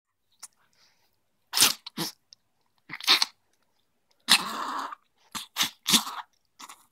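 A dog sneezing in a rapid run of sharp sneezes, one of them drawn out about halfway through. It is a sneezing fit set off by a large piece of grass lodged in her nose.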